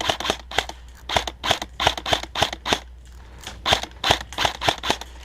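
Airsoft rifle firing rapid single shots: a dozen or so sharp clacks in quick runs, with a pause of about a second near the middle.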